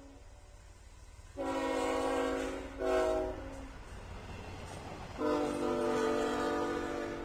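Norfolk Southern diesel locomotive's air horn sounding a long blast, a short blast, then a final long blast held past the end, completing the long-long-short-long grade-crossing signal. Under it runs the low rumble of the freight train rolling by.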